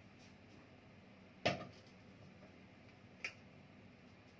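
Two short clicks about two seconds apart, the first louder, over faint room hiss.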